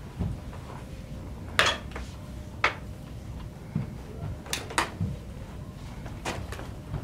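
Prop spear and long-bladed pole weapon striking each other in Cantonese opera stage combat: about six sharp clacks, the loudest near the start and two pairs in quick succession later. Dull thuds fall in between.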